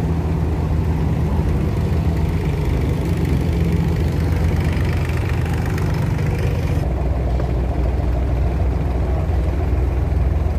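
Diesel engine of a wooden abra water taxi running steadily with a low hum. About seven seconds in the sound changes abruptly: the hiss drops away and the low hum gets stronger.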